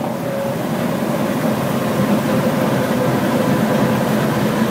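Cessna 162 Skycatcher's engine running steadily, with rushing air, heard inside the cabin during the landing rollout.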